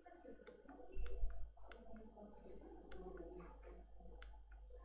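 Sharp clicks, about seven at irregular spacing, made while operating a computer to advance the slides. Under them runs a low hum that swells about a second in.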